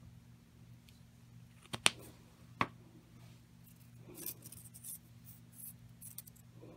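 Paper strips being handled and wound around a plastic cotton swab: three sharp clicks about two seconds in, then a stretch of crisp paper rustling and crinkling.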